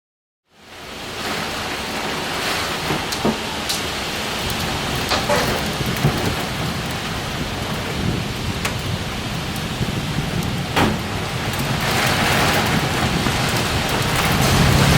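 Rain falling steadily, with scattered sharp taps of drops striking a hard surface; it fades in from silence, and a low hum comes in near the end.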